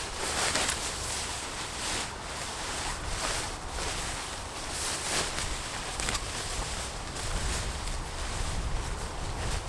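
Gusty storm wind outdoors with rustling. Wind buffets the microphone, and the low rumble grows stronger near the end.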